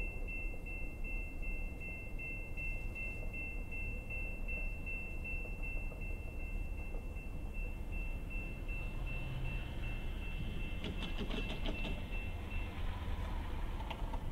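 Railroad grade-crossing bell ringing steadily in a fast, even pulse, which stops a little over a second before the end. A rushing noise builds from about two-thirds of the way in, with a quick run of clicks just before the bell stops.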